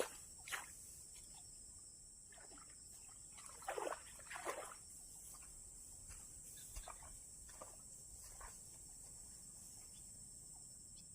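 Steady high-pitched insect chorus, with a few short splashing sounds scattered through it, the two loudest about four seconds in.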